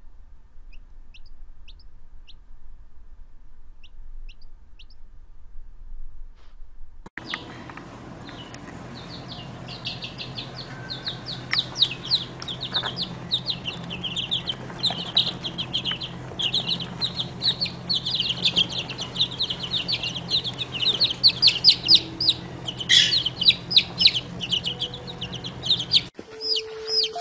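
A few faint, isolated high peeps, then from about seven seconds in a dense, continuous chorus of baby chicks peeping rapidly, many short high notes at once, over a low steady hum.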